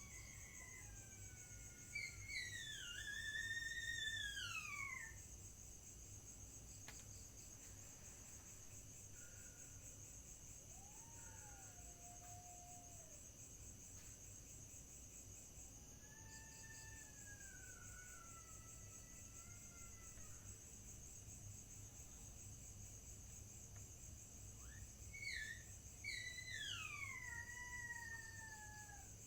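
Steady high-pitched chirring of night insects such as crickets, with a strange long whistled call from an unseen source repeating several times over it. Each call glides up and then slides down in pitch. The loudest calls come a couple of seconds in and again near the end, with fainter ones between.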